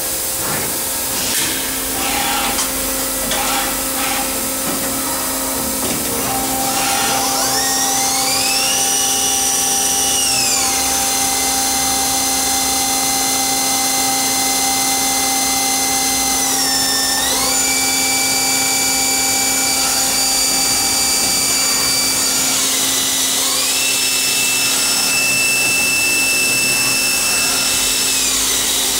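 Tornos Schaublin 65 CNC lathe running, its turrets visibly moving: a few short knocks in the first seconds, then its drives whine, the pitch rising about seven seconds in, holding, dipping and rising again several times, over a steady hum.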